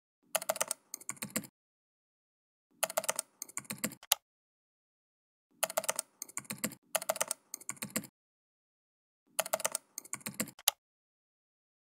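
Computer keyboard typing in four short bursts of rapid keystrokes, with dead silence between the bursts.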